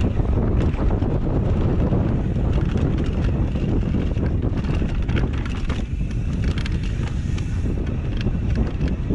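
Wind rushing over the microphone during a fast mountain-bike descent, a steady loud rumble, with the tyres rolling over dirt and dry leaves and the bike rattling in frequent short clicks over bumps.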